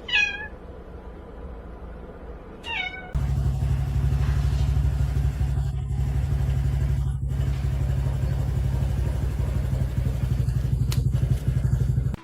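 A cat meows twice, each meow falling in pitch. About three seconds in, a loud steady low rumble starts and runs on, then cuts off suddenly.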